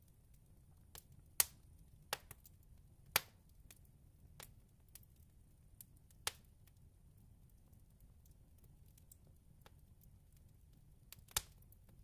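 Wood fire in a fireplace burning oak, walnut and hedge (Osage orange), crackling with scattered sharp pops from the hedge wood over a faint low rumble. The loudest pops come about a second and a half in, about three seconds in, and near the end.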